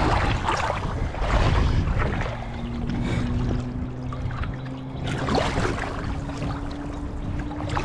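River water splashing and churning right against the microphone as a wading angler falls into the current, with heavy rumbling from the water and the phone being tossed about.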